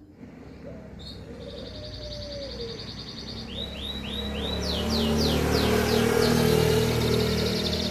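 Domestic canary singing: rolling trills, then a run of swooping notes, then a fast trill. Under the song a low rumble swells through the middle.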